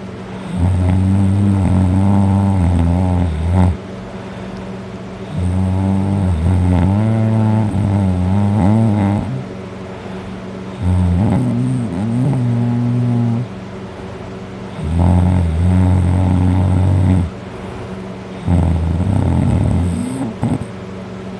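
A person passed out drunk, snoring very loud: five long snores, each two to four seconds and wavering in pitch, coming about every four seconds with quieter breaths between.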